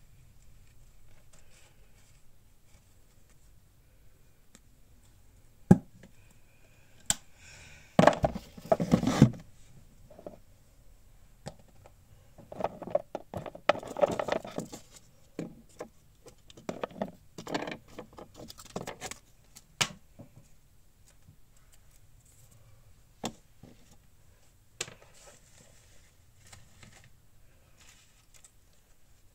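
Paper scraps and stickers being handled and sorted by hand, rustling and shuffling in two louder stretches about eight and thirteen seconds in, with scattered light clicks and knocks from the metal keepsake box and items set down on the table.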